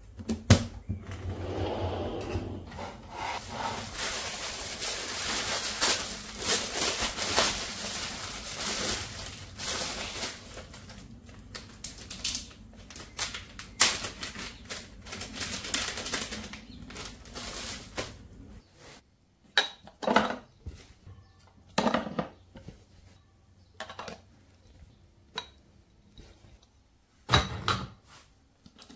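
Handling noises of household storage items: plastic containers, bowls and jars rustling and clattering, then separate knocks and clinks spaced a second or two apart.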